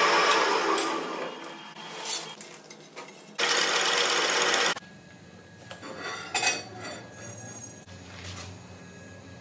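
Metalworking shop machine noise: a loud, hissing, grinding-type sound that fades over the first second or two. A second loud stretch starts and stops abruptly midway, followed by quieter clinks and clicks.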